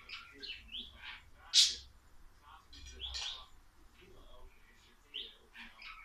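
Budgerigar giving a string of short chirps and warbling calls, the loudest a sharp chirp about a second and a half in.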